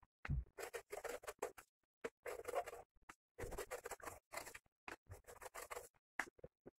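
Short, irregular scraping strokes of a kitchen knife working on an eggplant as it is peeled and cut, with brief gaps between strokes.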